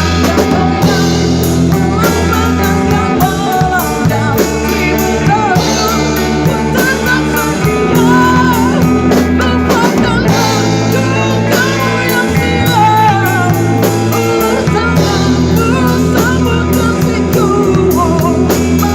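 Rock band playing a song: drum kit, bass and electric guitars, with a wavering, bending lead melody over steady chords.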